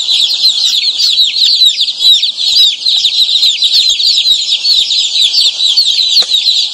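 A large brood of day-old chicks chirping all at once: a dense, continuous chorus of high peeps. This busy chirping shows the chicks are active and healthy.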